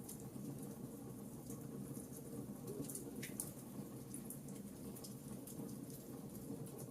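Campfire burning with a steady low rush of flame and scattered small crackles and pops of burning wood.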